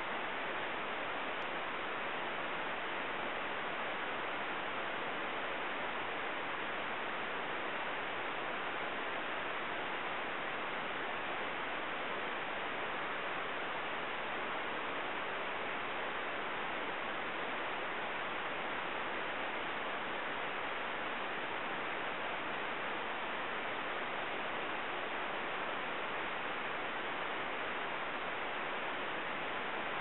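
Steady, even hiss with no distinct sounds in it, like recorder noise or static.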